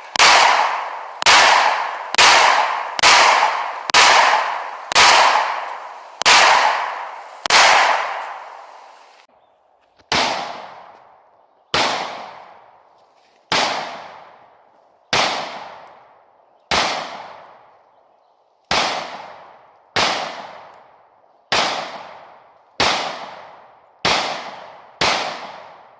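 Beretta APX Compact pistol fired shot after shot, about twenty shots in all, each crack followed by a ringing echo tail. The shots come quickly, about one a second, for the first several seconds, then slow to roughly one every one and a half seconds.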